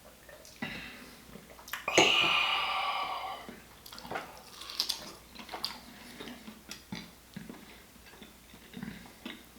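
Close-up mouth sounds of drinking and eating: a loud sip of wine starting sharply about two seconds in and fading over a second or so, then scattered smacks and clicks of chewing.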